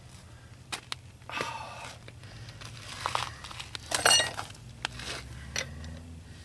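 Metal tool work on a car wheel while the lug nuts are snugged up: scattered clicks and scrapes, with a loud ringing metal clank about four seconds in.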